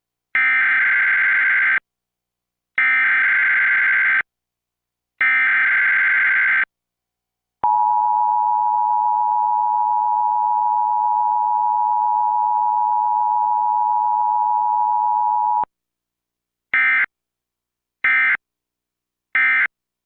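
Emergency Alert System tones for a Required Monthly Test, relayed by an Xfinity X1 cable box. Three screeching SAME header data bursts come first, then the two-tone attention signal held steady for about eight seconds, then three short end-of-message data bursts. There is no spoken message between the attention signal and the end-of-message bursts, because this relay came from IPAWS CAP without alert audio.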